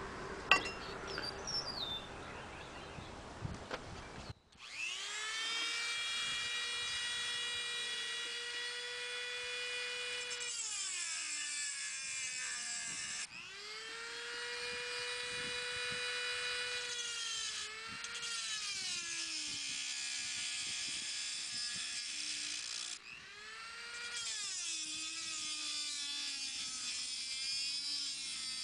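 A few light clicks from handling a metal bracket, then about four seconds in a handheld rotary tool starts with a steady high whine. Its pitch sags and recovers again and again, with a gritty hiss, as the spinning bit grinds at the slot of the knife sharpener's metal bracket.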